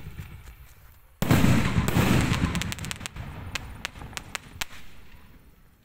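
A 3.5-inch sky shot aerial firework bursting with a loud bang about a second in that trails off slowly, followed by about a dozen sharp cracks over the next two seconds, then fading away.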